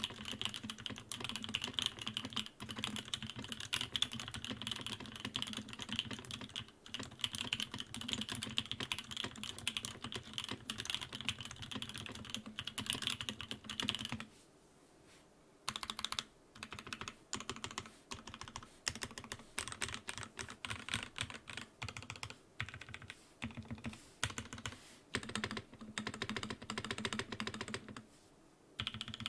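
Sam S80 mechanical keyboard, a top-mount board with its bottom cover fitted and no shelf liner, being typed on. Fast, steady typing for about the first half, a brief pause, then slower, more widely spaced keystrokes, with another short pause near the end.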